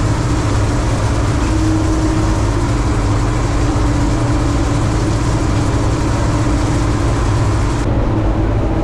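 Bizon combine harvester running steadily under load while harvesting, its engine and threshing machinery making a continuous loud drone.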